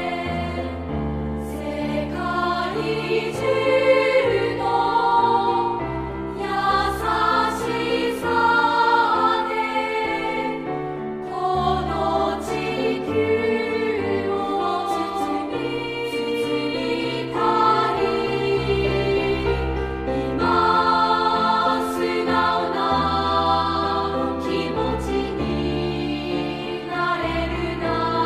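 Choir singing a slow song over instrumental backing music.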